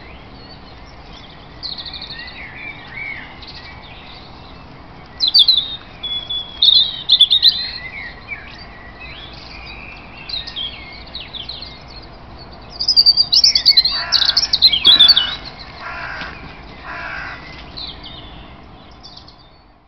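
Songbirds singing in a dawn chorus: varied high, warbling and trilling phrases coming in bursts, with a run of four harsh calls about two-thirds of the way through.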